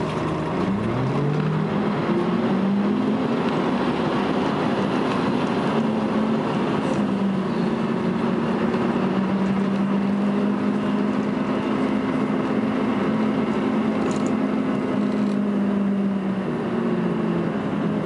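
Volvo B10BLE bus's six-cylinder diesel engine heard from inside the saloon, rising in pitch as the bus pulls away and then working hard at high revs (what enthusiasts call thrash). The pitch dips slightly about eight seconds in and falls away near the end as the engine comes off load.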